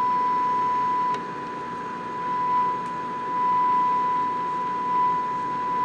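Steady 1 kHz test tone with hiss from a tube radio's speaker: the signal generator's modulated 455 kHz signal passing through the set during IF alignment. The tone's loudness dips about a second in and comes back up a couple of seconds later as the alignment is adjusted.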